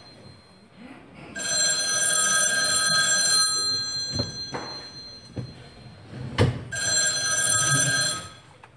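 Desk telephone ringing twice, each ring about two seconds long with a few seconds' pause between. A sharp knock comes just before the second ring, with a few fainter knocks in the pause.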